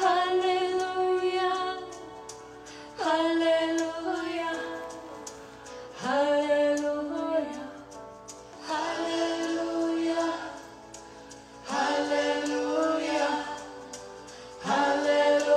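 A woman singing a devotional chant in long held phrases, one starting about every three seconds, each opening with an upward scoop in pitch, over a faint steady background drone.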